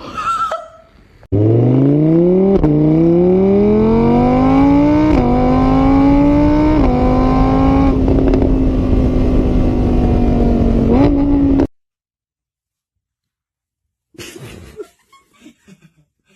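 An engine accelerating through the gears: its pitch climbs, drops at each shift and climbs again, then holds steady before cutting off suddenly.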